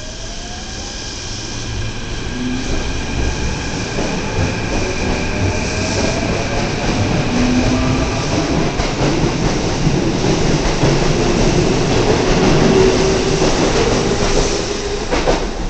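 Keikyu 1500-series six-car electric train pulling away from the platform and accelerating past, growing louder. The whine of its motors rises in pitch over the rumble and clatter of the wheels.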